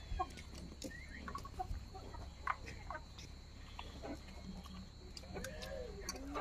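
Chickens clucking faintly now and then, short scattered calls, over a steady faint high-pitched tone.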